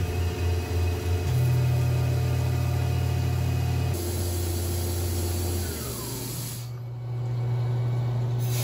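Tormach PCNC 1100 mill cutting 7075-T6 aluminium under flood coolant: a steady hum from the spindle and axis motors that steps to a new pitch several times, over a hiss of coolant spray. The hiss drops away for a moment near the end.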